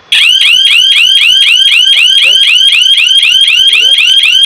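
Bushplus burglar alarm siren going off, set off by the door sensor while the system is armed. It is a loud, piercing electronic warble of about four rising-and-falling sweeps a second, and it starts abruptly.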